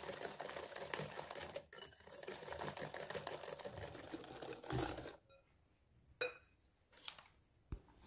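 Wire whisk beating egg yolks and sugar in a glass bowl: fast, continuous clicking and scraping of the metal wires against the glass. It stops about five seconds in.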